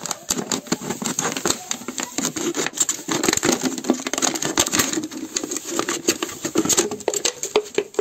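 Thin clear plastic drink bottle crackling and crinkling as it is cut into strips and handled, a dense, irregular run of sharp clicks and snaps.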